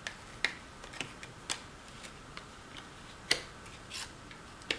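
Cardboard jigsaw puzzle pieces being set down and fitted together on a table: a string of light, irregularly spaced taps and clicks.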